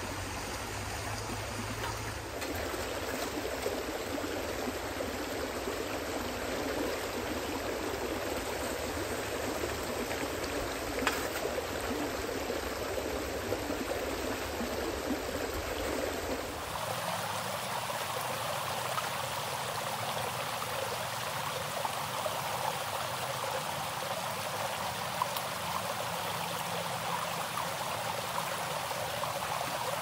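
Shallow creek water running steadily over rocks and through a gold sluice box, with a few light knocks. The tone of the water changes abruptly a little past halfway.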